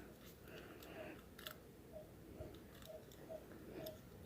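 Faint small metallic clicks of picks working inside a Master Lock level 3 padlock, with a faint regular tick about twice a second.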